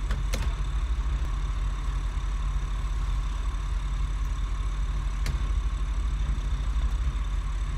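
Motor yacht's engines idling steadily at slow docking speed, a constant low hum. Two faint clicks come through, about half a second in and about five seconds in.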